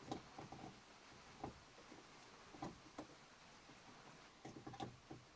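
Near silence with a few faint, short clicks and taps from handling small wires and crimp terminal ends, including a quick cluster of ticks near the end.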